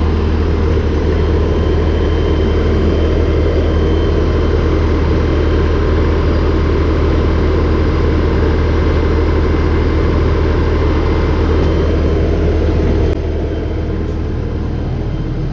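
A 42 hp LS compact tractor's diesel engine running steadily, with a deep low hum; its sound drops a little about thirteen seconds in.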